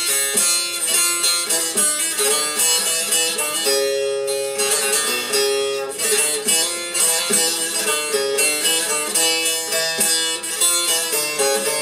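Bağlama (long-necked Turkish saz) played with a plectrum in a quick, running instrumental melody of rapidly changing plucked notes.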